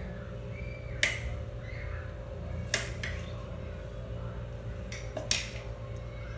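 A kitchen knife knocking sharply on a tile cutting board three times, spaced a second or two apart, while limes are cut, over a steady low hum.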